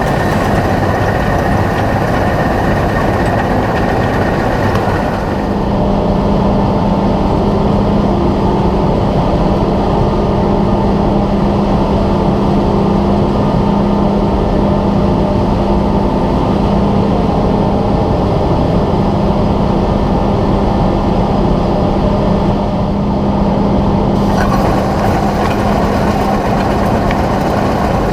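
Heavy diesel farm machinery running steadily during a rice harvest. The sound changes abruptly about five seconds in, when a steady low hum sets in, and shifts again near the end.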